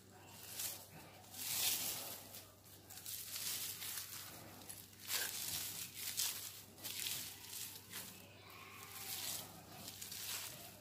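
Hands rolling and twisting plastic raffia strands against a bare thigh to ply them into a cord: repeated rustling, crinkling rubs, roughly one stroke a second.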